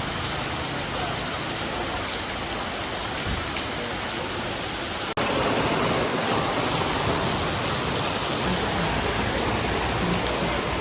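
Steady heavy rain. It cuts suddenly about five seconds in to a slightly louder stretch of rain.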